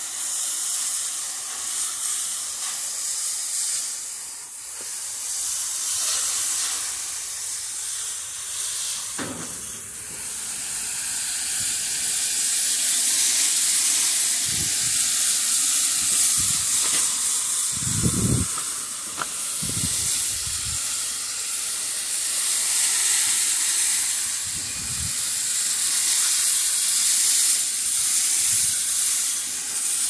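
Garden hose spray nozzle on a soft wash setting, water spraying steadily onto the fins of an air conditioner's outdoor condenser coil: a steady hiss that rises and falls in loudness, with a few soft low bumps a little past halfway.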